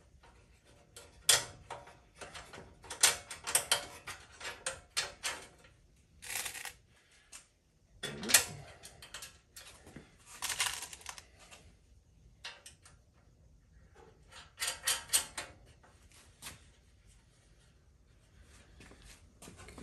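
Small steel bolts and nuts clinking and rattling as they are handled and fitted to a motorcycle frame, in irregular clusters of small metallic clicks with short pauses between.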